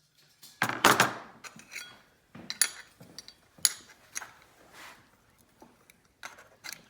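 Irregular metal clinks and knocks as a homemade steel bracket is handled and test-fitted against a truck's hood latch. The loudest cluster comes about a second in, with scattered single clanks after it.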